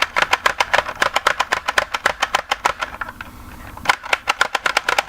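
Plastic toy nail gun's trigger and back-and-forth nail mechanism clicking rapidly, about eight clicks a second, with a pause of about a second partway through. It makes no electronic sound effect because it has no batteries.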